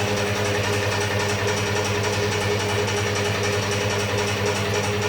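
Electric motor of a tyre-changing machine running steadily, a constant hum as a motorcycle tyre is mounted onto its rim.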